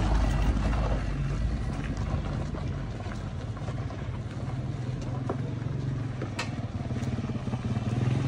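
Older-model Land Cruiser's engine running steadily as it drives along a rough mountain track, with a few sharp knocks and rattles from the vehicle.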